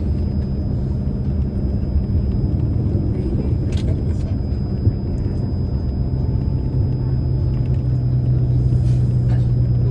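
Tour bus engine and road noise heard from inside the cabin: a steady low drone whose engine note shifts slightly about seven seconds in.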